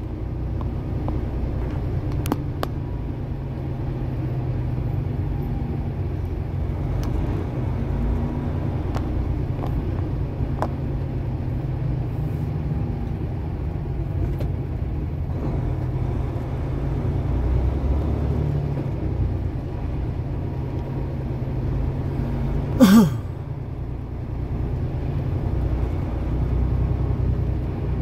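Semi truck's diesel engine running steadily at low revs, a continuous low rumble heard from inside the cab. About five seconds before the end, a short sound drops in pitch.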